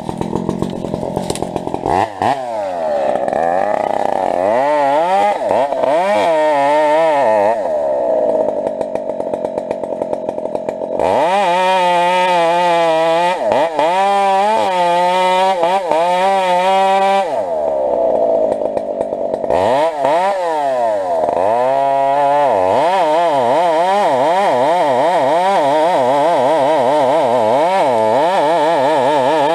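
Husqvarna 372 two-stroke chainsaw cutting, its engine revving up and dropping back again and again. It holds a steady full-throttle pitch for several seconds in the middle.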